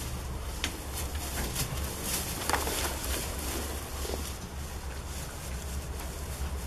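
Goats moving about on straw bedding: straw rustling with scattered light clicks, over a steady low rumble, and one brief falling sound about two and a half seconds in.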